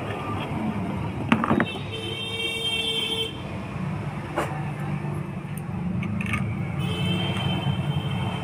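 Steady road-traffic rumble from passing vehicles, with a sharp click about a second and a half in and a couple of fainter clicks later. A high tone with overtones comes and goes twice.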